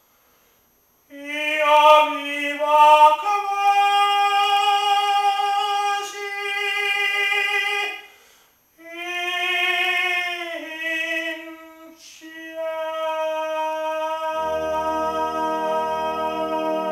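Operatic tenor singing long held phrases with little or no accompaniment, breaking off briefly about eight seconds in. Near the end a sustained chord from the karaoke backing track on a boombox comes in under the held note.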